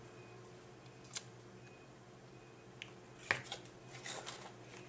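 Close-miked eating sounds: soft mouth clicks and smacks from chewing an iced cinnamon twist. A single sharp click comes a little past a second in, and a cluster of clicks and smacks starts about three seconds in.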